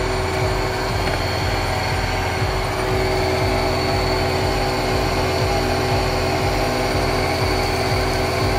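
Milling machine running steadily, a carbide end mill cutting into a block of D6 tool steel, with mist coolant spraying onto the cut.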